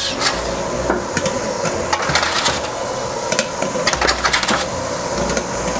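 Eggs clicking and knocking against a stainless steel folding steamer basket as they are set in one by one, over a steady hiss from the pot of steaming water beneath.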